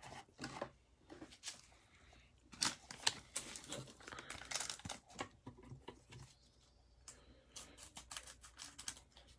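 Plastic-foil wrapper of a Mosaic trading-card pack crinkling and crackling as it is handled, then being cut open with scissors near the end: a run of short crackles and sharp snips.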